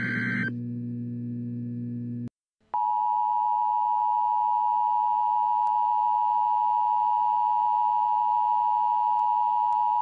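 Emergency Alert System relay over FM radio: the last raspy digital SAME header burst ends over a low hum. After a brief dropout, the steady two-tone EAS attention signal starts about three seconds in and holds, announcing a new tornado warning.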